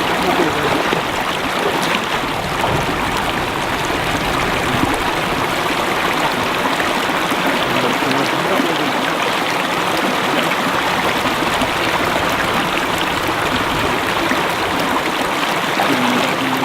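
Small spring-fed creek babbling and rushing steadily, loud and unbroken.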